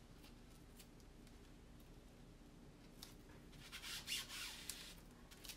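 Hands pressing and smoothing a sticky plastic stencil transfer flat onto a board, a soft rustling rub that starts about three seconds in after near quiet.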